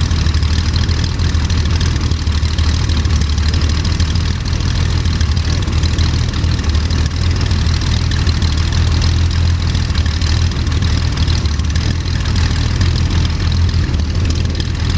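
Jabiru 3300 air-cooled flat-six aircraft engine running steadily at idle on its first run, swinging the propeller.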